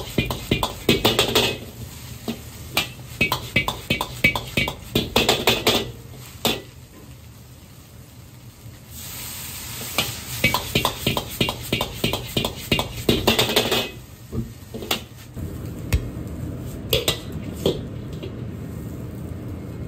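Metal ladle clanking and scraping against a wok in quick runs as fried rice is stirred and tossed over a high gas flame, with a burst of sizzling near the middle as cooking wine hits the hot wok.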